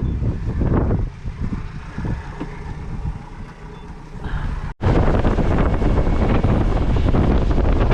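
Boat's outboard motor running with wind buffeting the microphone. The sound eases off partway through, drops out for an instant about five seconds in, then comes back louder with heavy wind rush.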